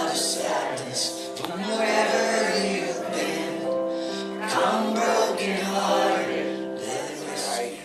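Church choir singing a closing hymn, with the congregation joining in, in sustained chords; the singing stops near the end.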